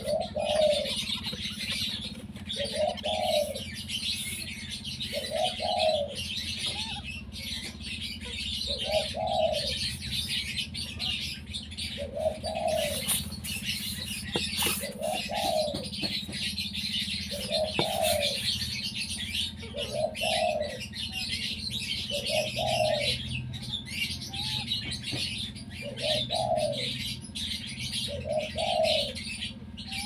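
Birds calling in a pen: a short low call repeated about every two and a half seconds, over constant dense high-pitched chatter.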